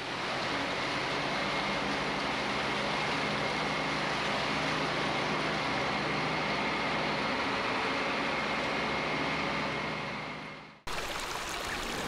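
Creek water rushing over the edge of a concrete causeway and tumbling onto rocks, a steady rushing sound with a faint steady hum underneath. It fades in at the start and fades out shortly before the end, where a quieter, different sound takes over.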